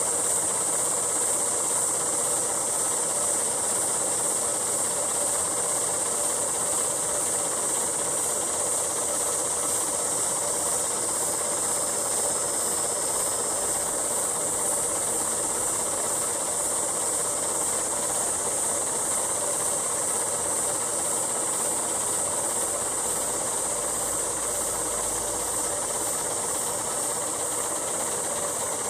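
A steady high hiss, even throughout, with no separate sounds standing out from it.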